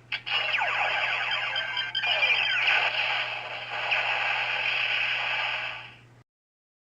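DX Hibiki Ridewatch toy playing an electronic sound effect through its small built-in speaker, with sweeping pitch glides over a steady hum. It cuts off suddenly about six seconds in.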